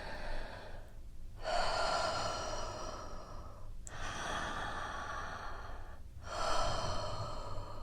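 A woman's slow breaths close to the microphone: four long breaths of about two seconds each, with brief pauses between them.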